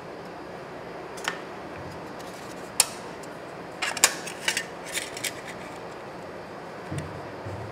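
Thin aluminium sheet crackling and clicking as it is handled and wrapped around a voice-coil winding, in a few sharp clicks with a quick cluster about four to five seconds in, over a steady background hiss. A couple of soft thumps come near the end.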